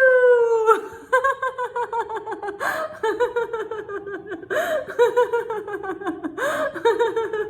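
A woman laughing deliberately as a laughter-yoga exercise: a long falling cry, then runs of quick "ha-ha-ha" pulses, with a sharp breath drawn in between runs three times.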